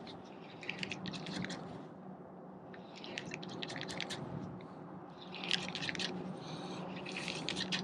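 Spinning fishing reel being cranked in several short bursts, a fast rattly clicking, over a steady low hum.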